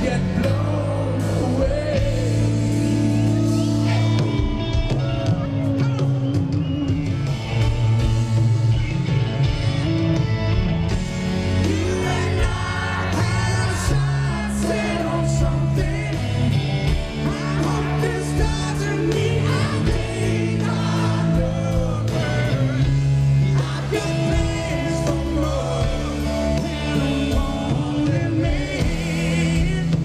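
A live rock band playing a song, with a male lead vocal and backing singers over electric guitar, bass, drums and keyboards, heard from the audience.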